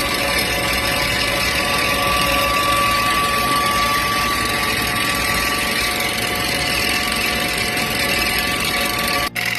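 A machine running steadily, with a constant high whine over a wide noise.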